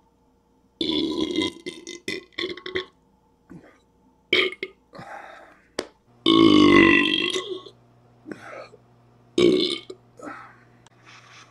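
A man burping deliberately, a string of separate belches with short gaps between them. The longest and loudest is a deep belch of over a second, a little past halfway.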